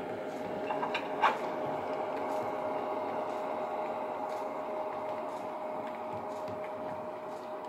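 Model ALe 803 electric railcar with a sound decoder running along the layout track: a steady running noise with a constant whine, faint light ticks, and one sharp click about a second in.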